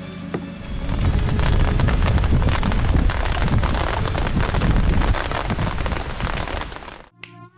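Edited soundtrack: background music under a loud, dense rumbling noise with heavy bass that cuts off abruptly about seven seconds in. Right after the cut, an electronic intro sting starts with a rising sweep.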